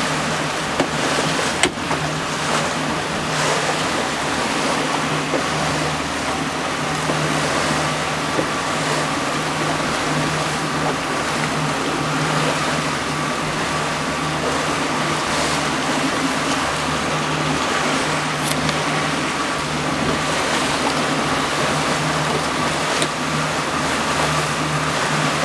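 Outboard motor of a fishing boat running steadily at speed, a constant low drone, with water rushing and splashing past the hull.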